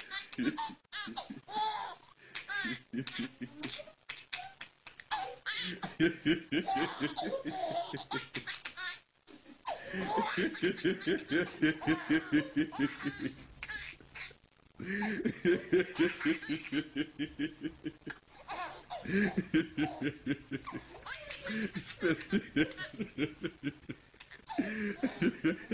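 A baby and a man laughing hard, in long runs of rapid ha-ha pulses broken by brief pauses for breath.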